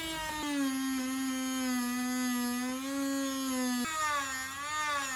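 Corded Dremel-style rotary tool whining steadily as its blade cuts through a plastic rear bumper; about four seconds in its pitch starts to wobble up and down.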